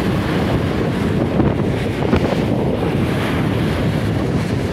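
Wind buffeting the microphone over choppy river water churning and splashing alongside a moving boat, a steady loud rush.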